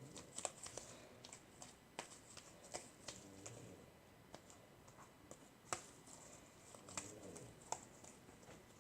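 Shaving-cream slime being worked in the hands: faint, scattered sticky clicks and small pops as it pulls off the skin, the sharpest about six and seven seconds in.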